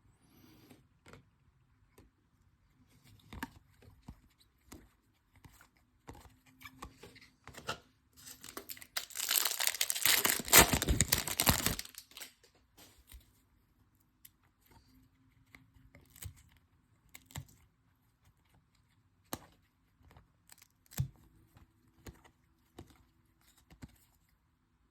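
A foil trading-card pack being torn open: a loud tearing and crinkling lasting about three seconds near the middle, with light rustles and clicks of cards being handled before and after it.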